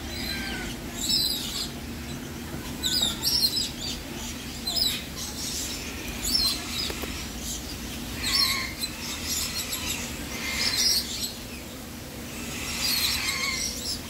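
Parrots calling in a walk-through aviary: short, high, harsh chirps and squawks come every second or two from several birds, over a steady low hum.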